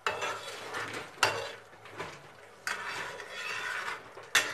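Slotted metal spatula scraping and knocking against a metal pan while stirring semolina halwa that is thickening on the stove. It goes in several strokes, with sharp knocks about a second in and near the end.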